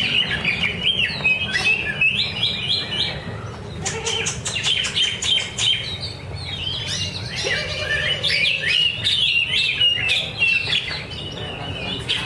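Caged male green leafbird (cucak ijo) singing a fast, varied song of chirps, trills and quick whistled sweeps, with a short pause about three and a half seconds in.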